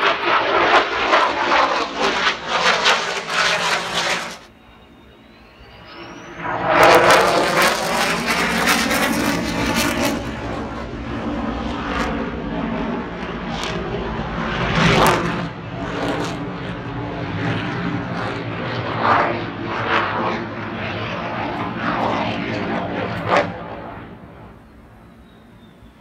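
Jet noise from a Blue Angels F/A-18 twin-engine jet flying over. It is loud for the first four seconds, drops off suddenly, then comes back about seven seconds in with a sweeping whoosh as the jet passes. It stays loud and fades near the end.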